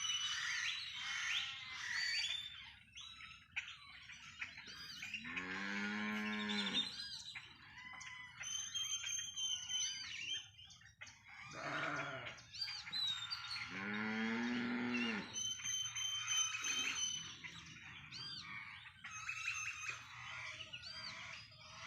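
Many birds chirping and calling over one another, with two long, low, drawn-out calls from a larger animal, one about five seconds in and one about thirteen seconds in.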